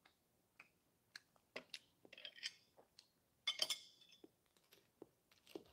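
Metal knife and fork clinking against a plate while a donut is cut, among scattered light clicks; the loudest clinks come about two seconds and three and a half seconds in.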